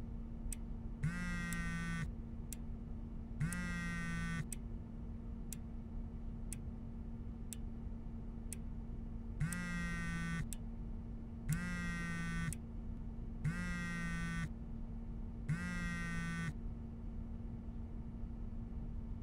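Mobile phone ringing with an incoming call: a pitched ringtone about a second long, repeating every two seconds, with a pause of about five seconds after the first three rings. A steady hum and faint ticks about once a second run underneath.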